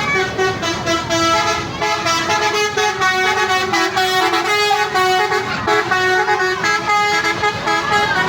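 Basuri telolet multi-tone bus horn playing a tune, its held notes stepping up and down in pitch one after another.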